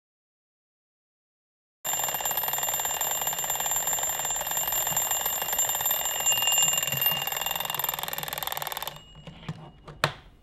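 Twin-bell alarm clock ringing rapidly and steadily, starting about two seconds in. It stops about nine seconds in as it is grabbed and switched off, followed by a few small knocks and a sharp click of handling.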